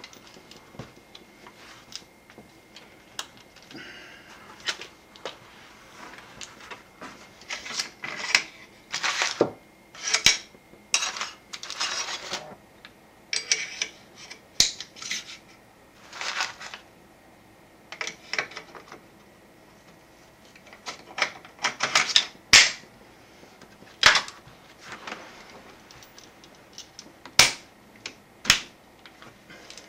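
Metal clicks, scrapes and clacks of an AR-15 being worked by hand as a Phase 5 Tactical ambidextrous charging handle is slid into the upper receiver and the rifle put back together, with several sharp clacks in the second half.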